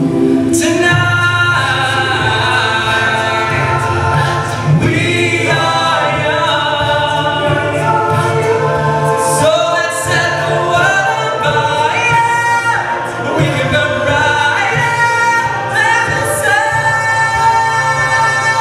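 Men's a cappella group singing a pop song with microphones, several voices holding chords over a steady sung bass line.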